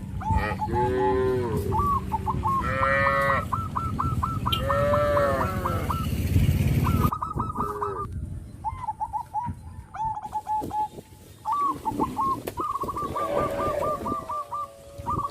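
Cattle mooing with long, arching calls, mixed with many runs of quick, short, higher calls. A steady low rumble runs under the first half and cuts off about seven seconds in.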